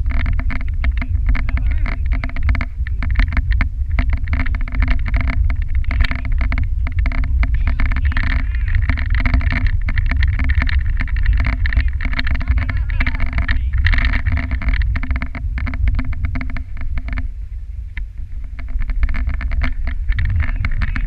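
Dog sled running along a packed snow trail: a steady rumble with a dense, rapid rattle of the runners and sled frame over the snow, and wind buffeting the microphone. It eases briefly near the end.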